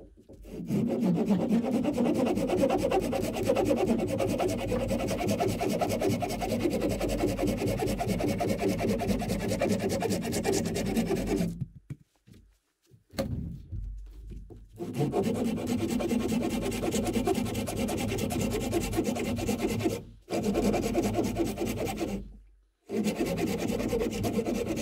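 Hand saw cutting through a hardwood branch, in fast, steady back-and-forth strokes, stopping briefly about 12, 20 and 22 seconds in.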